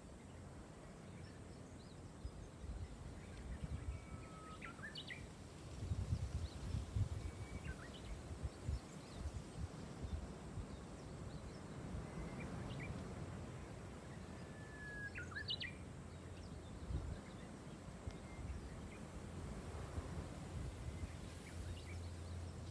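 A wild bird calling a few times, each call a short whistle that ends in a sharp upward sweep, over a steady low rumble of background noise.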